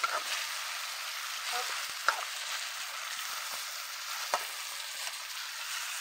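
Meat curry with potatoes and tomatoes sizzling in a kadai while a metal spoon stirs it. The spoon knocks sharply against the pan three times: at the start, about two seconds in (the loudest), and just past four seconds.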